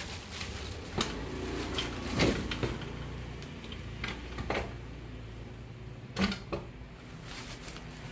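Handling noise from a heavy plastic-wrapped industrial sewing machine head being lifted and set down into its table: scattered knocks and creaks, the sharpest about two seconds in and about six seconds in.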